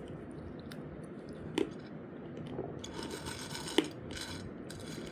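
Crisp fried raw jackfruit wafers being crunched while eaten: faint crackling that thickens in the second half, with two sharp clicks, one about one and a half seconds in and one near the end.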